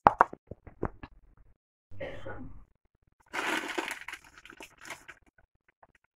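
Handling noise around a stainless steel mixer-grinder jar: a quick run of clicks and light knocks, then two short rustling bursts, about two seconds and three and a half seconds in, the second the louder, trailing off into a few scattered clicks.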